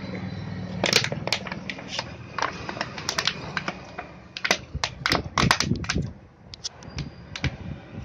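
Thin plastic bottle crackling and clicking in the hands as it is squeezed to pour descaling acid onto a washing machine spin drum: quick, irregular clicks, busiest in the middle.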